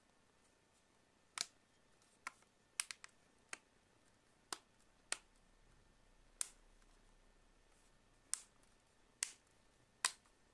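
Sharp, irregular clicks and taps, about a dozen in ten seconds, some in quick pairs or triples: small tools and plastic tablet parts being handled and set down on a hard work surface during tablet disassembly.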